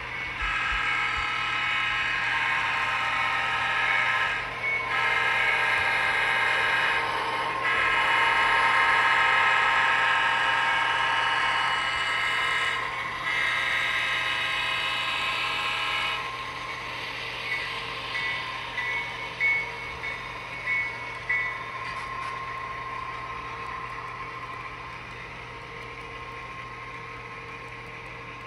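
Train sounding long, high-pitched sustained tones in four stretches of several seconds each, separated by brief breaks, followed by fainter running noise with a few short sharp peaks.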